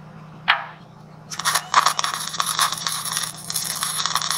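Stick-welding arc on steel crackling and sizzling steadily as a bead is run. A short burst comes about half a second in, and the arc catches about a second in and keeps crackling.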